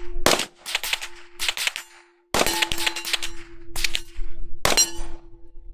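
Suppressed .22 LR semi-automatic rifle (a Ruger 10/22 with a Faxon fluted barrel and SilencerCo suppressor) firing several shots at an irregular pace, each a sharp crack with a short ringing tail. A faint steady hum runs underneath.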